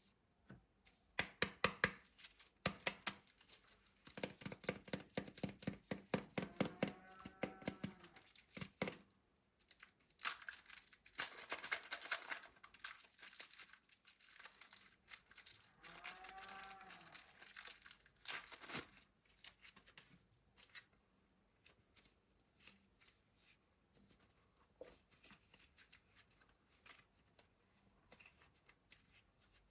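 Plastic packaging being torn open and crinkled. It is a dense run of crackles, loudest in the first two-thirds, with two brief squeaks about 7 and 16 seconds in, then fainter, sparser crinkling.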